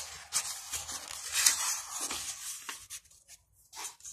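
A glossy picture-book page being turned by hand: paper rustling and sliding for about two and a half seconds, loudest halfway through, followed by a few light clicks.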